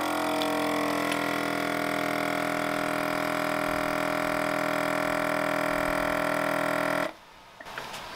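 CASO countertop vacuum sealer's pump running with a steady hum as it draws the air out of the bag, cutting off suddenly about seven seconds in. A quieter hiss follows near the end.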